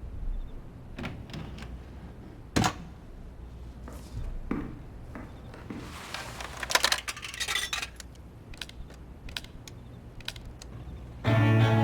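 Clatter of small hard objects: scattered clicks and clinks, one sharper knock a few seconds in and a quick run of clinks in the middle. Music with steady sustained notes comes in at the very end.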